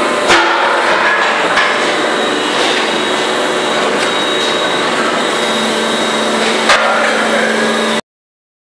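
Steady factory machinery noise with a few sharp metal knocks, one just after the start, one at about a second and a half, and one near the end. A low hum joins past halfway, and the sound cuts off suddenly.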